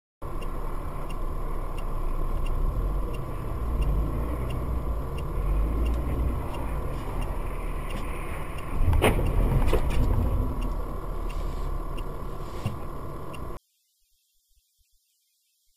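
In-cabin dashcam audio of a car: a steady low engine and road rumble with a steady electronic whine and faint regular ticking, about one and a half ticks a second. About nine seconds in comes a loud impact, with a second knock a moment later. The sound cuts off suddenly near the end.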